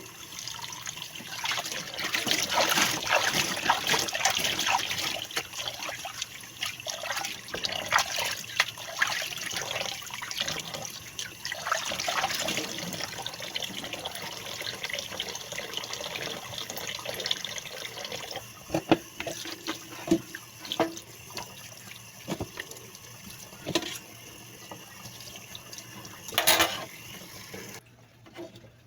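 Tap water running into a sink while a pompano is rinsed and handled, with scattered small knocks and splashes. The water is loudest in the first half and cuts off shortly before the end.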